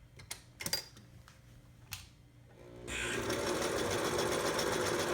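A Singer 756 Touch & Sew zigzag sewing machine sewing a straight stitch. A few light clicks come first; then, about two and a half seconds in, the motor spins up and the machine runs at a steady speed with a rapid, even needle clatter.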